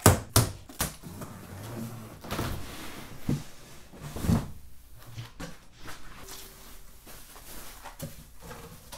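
Cardboard box and packing of a mini-split indoor unit being opened by hand: a few sharp snaps near the start as packing straps are cut, then cardboard flaps and foam rustling, with a couple of dull thumps as the unit is lifted out.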